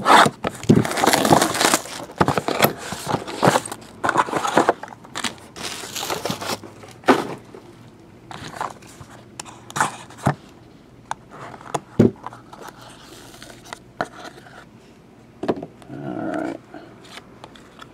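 Knife cutting into the plastic shrink wrap of a sealed trading-card box, with the wrap crinkling and tearing for the first six seconds or so, then scattered clicks and taps of cardboard and cards being handled, with one sharp knock about twelve seconds in.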